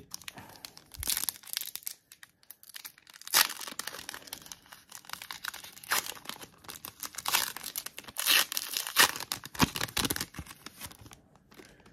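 Crinkly plastic trading-card packaging being handled and pulled apart: a dense run of crackling and tearing with several louder bursts.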